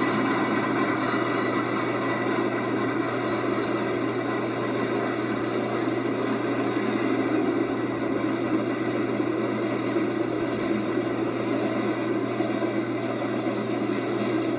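A 15-car passenger train rolling past, a steady noise of wheels on rail that does not change.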